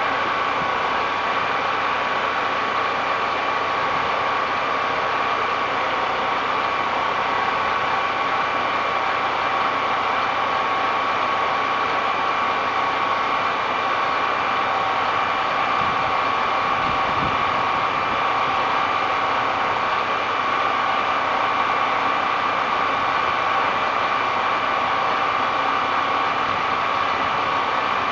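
An engine running steadily at a constant speed, with a steady whine over its noise.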